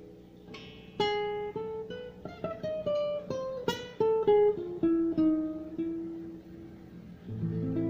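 Nylon-string classical guitar played fingerstyle. A chord rings and fades, then from about a second in a melody of single plucked notes climbs to a high note and steps back down. A new low chord sounds near the end.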